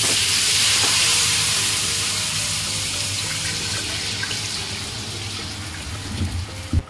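Thin besan (gram flour) batter poured into hot mustard oil in a kadhai, sizzling loudly. The sizzle starts suddenly and slowly dies down, and there is a short knock just before the end.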